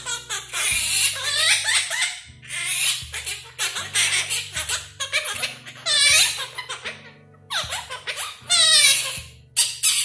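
Quaker parrot chattering in short, high-pitched bursts, mimicking the Mandarin phrase 'bǎobèi, māma de bǎobèi' ('baby, mommy's baby'), over background music with low notes.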